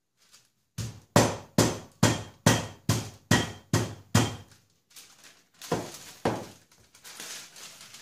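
Flat meat pounder striking a thin slice of pork loin between sheets of baking paper on a chopping board: about nine even thuds, roughly two and a half a second, then two more blows a little later. Near the end comes the rustle of the baking paper being handled.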